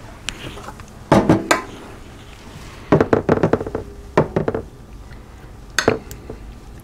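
Metal spoon clinking and scraping against a glass Pyrex baking dish while gravy is spooned over the meat, in several short bursts of clinks.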